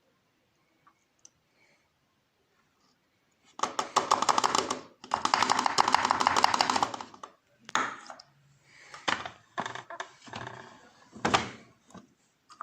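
Samsung WF1600WCV front-loading washing machine at work: rapid clattering and knocking from inside the drum, first in two long bursts, then in shorter bursts.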